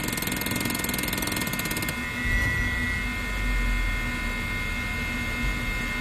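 Audi A8 engine being started by push button: the starter cranks for about two seconds, then the engine catches with a brief rise and settles into a steady idle. A short beep sounds as it catches.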